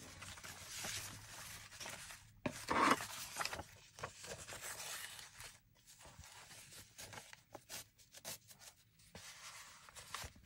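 Paper pages rustling and rubbing as hands handle a stack of journal pages and thread a ribbon through them, in intermittent rustles, loudest about three seconds in.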